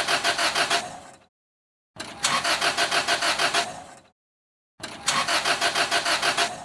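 Car engine cranking on the starter without catching: three tries of about two seconds each, every one a fast even chug of about seven strokes a second that dies away, with silence between them.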